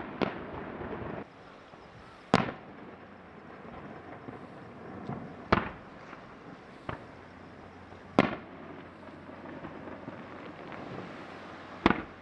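Aerial firework shells bursting: four sharp bangs about three seconds apart, with a couple of fainter pops between, each trailing off in an echo. It opens on the fading rumble of a rapid volley.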